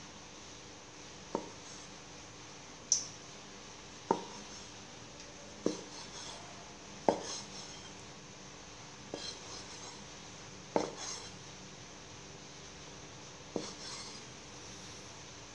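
Kitchen knife chopping soft roasted eggplant on a round wooden chopping board: about eight separate sharp knocks of the blade striking the board, spaced one to three seconds apart.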